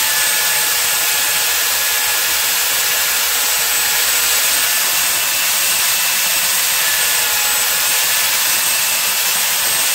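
Handheld electric belt sander, clamped upright as a stationary sander, running steadily while a wooden block is pressed against the moving belt and sanded.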